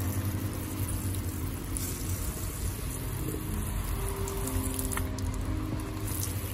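Water from a Gardena hose spray gun hissing steadily onto a bonsai's gravelly mineral substrate and splashing onto the wet pot and slatted wooden stand.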